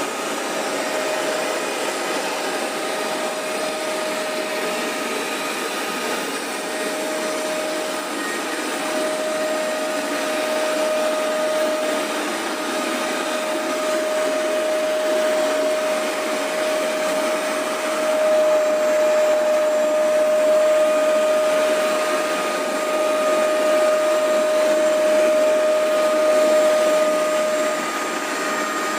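Hoover Max Extract 77 carpet deep cleaner running, its motor giving a steady whine over a rushing noise; the level swells and eases slightly as it works.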